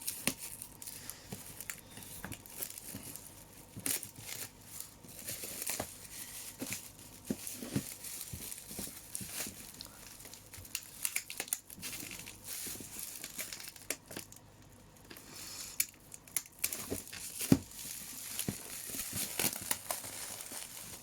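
Packaging crinkling, rustling and tearing as a parcel is unpacked by hand, with scattered sharp clicks and knocks; the loudest is a single sharp knock about three and a half seconds before the end.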